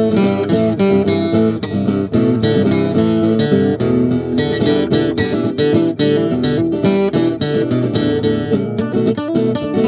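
Acoustic guitar playing a steady strummed rhythm.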